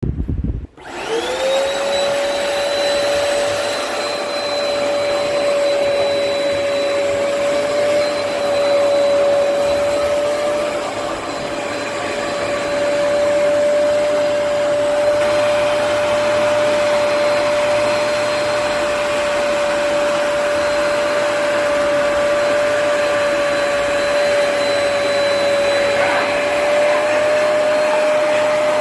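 Hoover PowerDash Pet+ compact carpet cleaner switched on: a low thump, then its suction motor spins up within about a second and runs steadily with a constant whine over a rushing noise.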